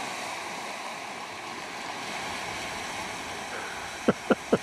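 Steady rushing wash of sea water and wind. Near the end come three sharp, very short sounds about a quarter of a second apart, each dropping quickly in pitch, louder than the wash.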